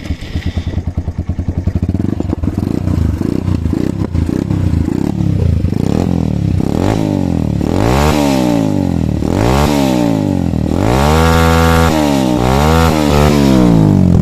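TVS Apache RTR 160 single-cylinder engine exhausting through an Akrapovic-branded slip-on silencer, idling for about six seconds and then revved with several throttle blips that rise and fall in pitch, one held high for about a second before the last blip near the end.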